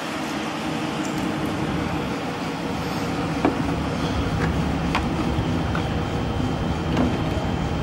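Steady low rumble of machinery running, with a few faint clicks over it.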